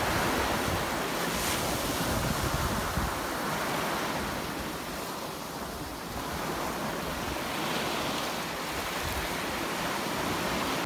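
Sea waves breaking and washing over a pebble beach, a steady surf wash that swells and eases, dipping about halfway through and building again. Wind buffets the microphone with a low rumble.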